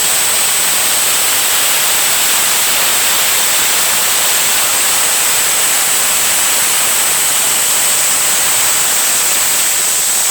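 Pressure cooker whistling: steam venting steadily through the weight valve as a loud, unbroken hiss with one steady high whistle tone on top, a sign that the cooker is at full pressure.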